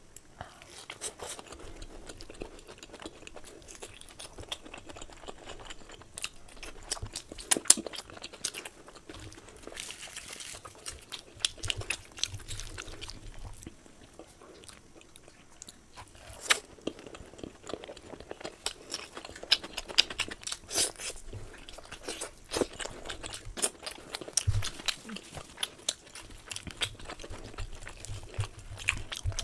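Close-miked mouth sounds of a person eating luchi (deep-fried puffed flour bread) with curry by hand: irregular wet chewing, biting and crunching, with many sharp clicks.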